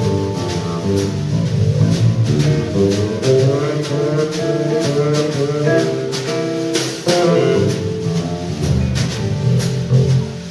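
Jazz guitar ensemble of electric guitars with bass and drum kit playing together: guitar melody lines moving over a walking low bass part, with regular cymbal strokes keeping time.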